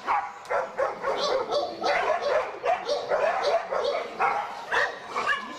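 A Rottweiler and a Doberman attacking another dog: a rapid, unbroken string of short barks and yelps, several a second.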